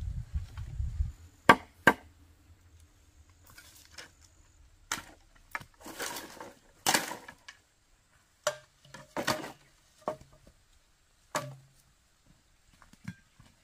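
A blade chopping on wood in irregular strokes: two sharp knocks about a second and a half in, then scattered softer knocks and short scraping sounds.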